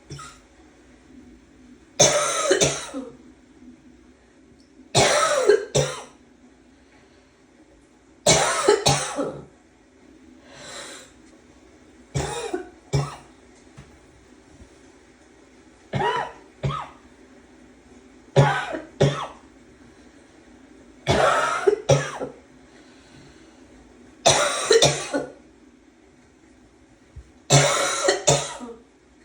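A person's barking cough, coming in short bouts of one or two hard coughs about every three seconds.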